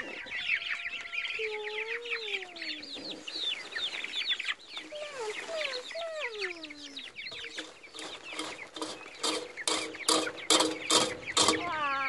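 A flock of poultry calling while feeding: many high, quickly falling peeps overlap throughout, with a few longer falling calls in the first half. A run of rapid, louder calls starts about two-thirds of the way in and runs nearly to the end.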